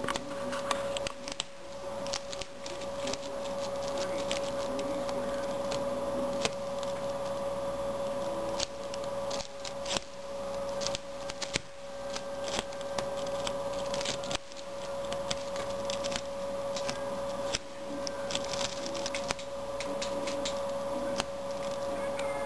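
Domestic rabbit gnawing and chewing a woven grass hut: irregular dry crunching and crackling clicks as the grass strands are bitten, over a steady hum.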